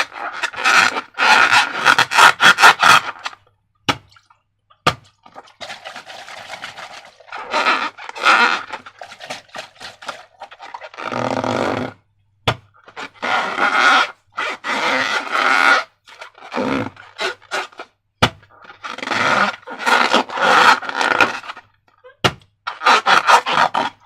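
Slime being squished and stretched by hand: repeated bursts of sticky, crackling squelches a second or two long, with short pauses between them and a few sharp single clicks.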